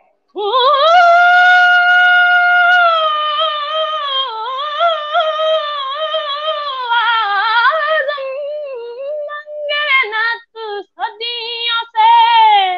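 A boy singing a naat unaccompanied: a long high note held for a couple of seconds, then a wavering, ornamented melodic line that breaks into shorter phrases near the end.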